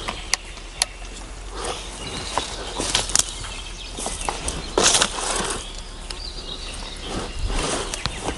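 Brush and leaves rustling in irregular bursts, with a few sharp snaps of twigs.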